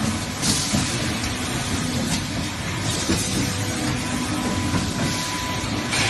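Factory machinery running on an aluminium fin evaporator production line: a steady din with hiss and scattered clanks and clicks.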